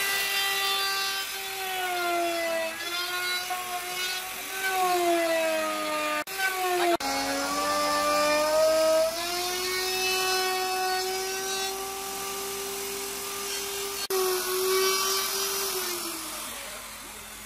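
Electric plunge router running at high speed and cutting a slot through a wooden board, its whine sagging in pitch under load and recovering. There are a few abrupt breaks in the sound.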